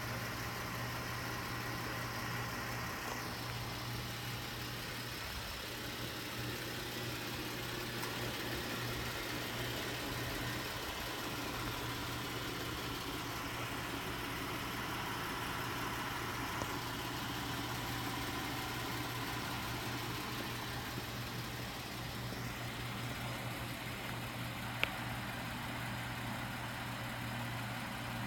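Jeep Wrangler JK Rubicon's engine idling steadily, with one sharp click near the end.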